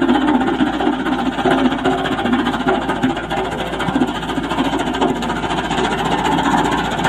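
Sakai 512D single-drum road roller's diesel engine running steadily as the roller drives over and compacts a bed of crushed stone.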